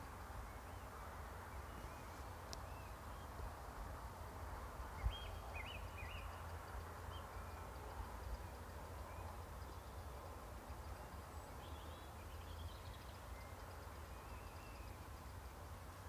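Quiet outdoor ambience: a low steady rumble with a few faint, short bird chirps now and then, and a soft thump about five seconds in.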